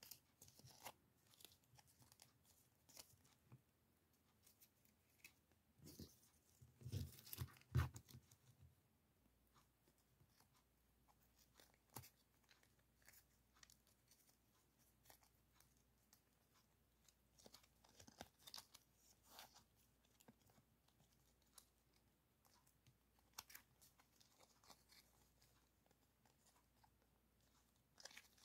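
Small paper stickers and their backing paper being handled: faint scattered rustling, crinkling and tearing, with a louder spell of crinkling about six to eight seconds in.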